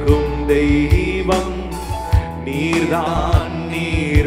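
Live Christian worship music from a church band: sustained instrument chords over a beat of low drum hits, with singing coming in about three seconds in.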